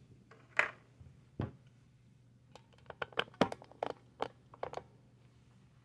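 Small clicks and crunches from hands working on a die-cast toy truck's tiny wheels and axles: two single clicks, then a quick run of about a dozen clicks in the second half.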